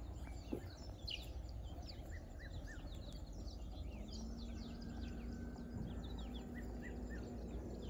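Small birds chirping and calling over a low outdoor rumble. A faint steady hum joins about halfway through.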